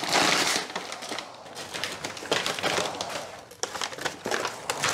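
Glossy plastic shopping bag crinkling and rustling as it is picked up off the floor and handled, a dense run of small crackles.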